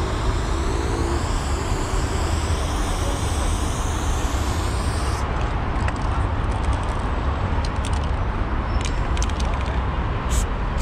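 Aerosol spray-paint can hissing in a long continuous spray for about the first five seconds, then stopping. A few light clicks follow, and a short hiss comes again near the end, all over a steady low rumble.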